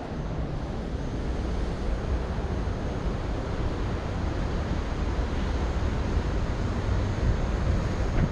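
Steady noise of ocean surf washing below a seawall, mixed with wind on the microphone.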